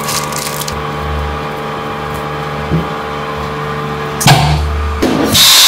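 Chamber vacuum sealer: a steady machine hum, then a loud thump as the lid comes down about four seconds in. Near the end the vacuum pump starts with a loud, steady rushing hiss as it draws the air out of the chamber.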